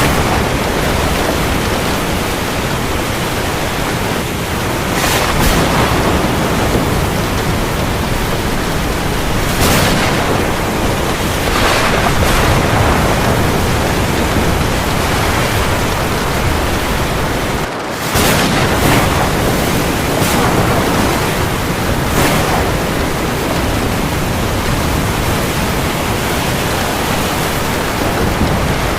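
Heavy rain falling on the sea: a dense, steady hiss with a few brief swells in loudness, dropping out for an instant about two-thirds of the way through.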